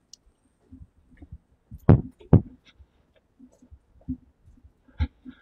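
Scattered soft thumps and knocks from a handheld camera being carried at a walk, with two stronger knocks about two seconds in and another about five seconds in.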